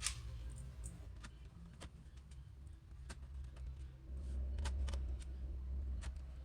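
Screws being driven into a laptop's plastic bottom case with a small screwdriver: scattered light clicks and ticks, with a low rumble of handling from about four to six seconds in.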